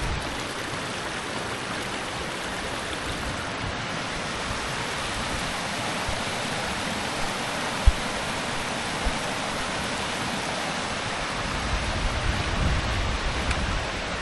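A fast rocky stream rushing over stones: a steady, even hiss of running water. Two brief low thumps come just past the middle, and a low rumble builds near the end.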